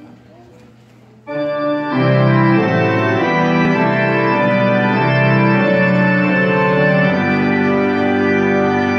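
Electronic keyboard played with an organ sound: after a brief lull, sustained organ chords come in about a second in and swell to full volume, changing chord every second or so.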